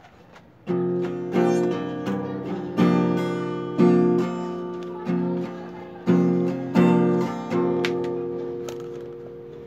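Acoustic guitar strummed: a string of chords about a second apart, starting under a second in, the last one left to ring and fade over the final two seconds.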